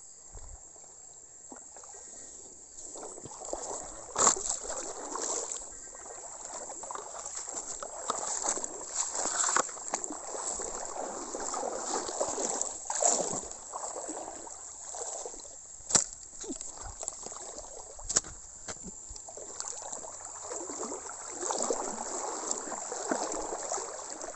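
Shallow river water sloshing and splashing unevenly, with several sharp knocks along the way.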